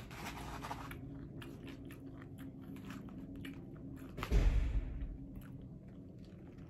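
A person chewing food, a run of small quick clicks, with a louder thump and rustle about four seconds in.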